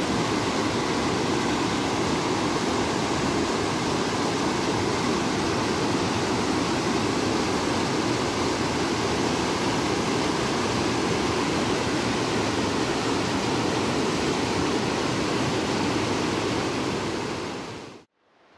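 Whitewater rapids of a mountain river rushing steadily around boulders, a loud, even roar of water. It fades out near the end.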